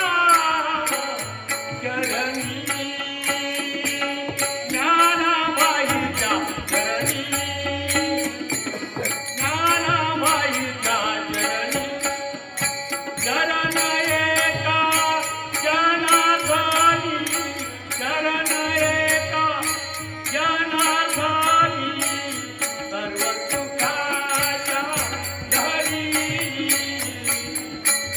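Marathi devotional abhang sung kirtan-style: a melodic singing line with accompaniment over a steady beat of sharp metallic clicks from small hand cymbals.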